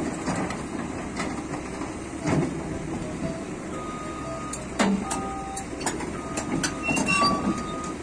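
Caterpillar crawler excavator running while being loaded onto a lowboy trailer: a steady engine noise with scattered metallic clanks and short high squeaks.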